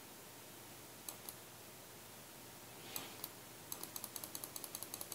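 Faint computer mouse clicks over a steady low hiss: two clicks about a second in, a brief rustle and a click around three seconds, then a rapid, even run of ticks, about eight a second, near the end.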